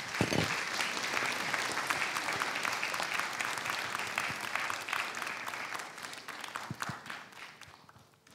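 Audience applauding, a dense round of clapping that fades away over the last couple of seconds.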